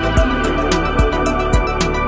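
Background music: sustained organ-like keyboard chords over a steady beat.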